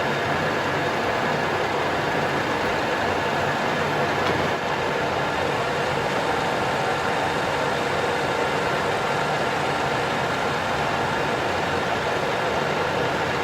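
Colchester Master 2500 lathe running steadily: a constant machine hum with several held tones, with a brief slight dip about four and a half seconds in.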